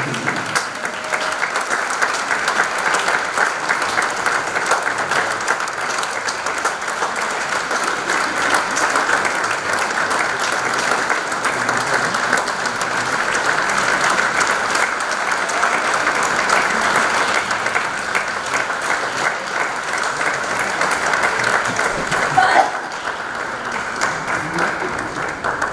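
Audience applauding with steady, dense clapping that thins out near the end.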